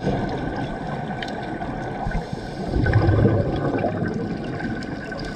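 Underwater scuba-dive sound: a diver's exhaled regulator bubbles gurgling. The bubbling surges louder about three seconds in, with a few faint clicks scattered through it.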